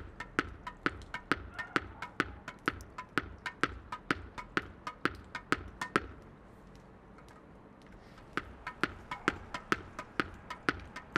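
Tennis ball bounced on paving stones and caught in the hand, sharp taps in a steady rhythm of about four a second. The taps stop for about two seconds midway, then start again.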